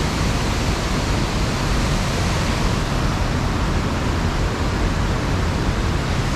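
Steady rushing water of a waterfall or river cascade.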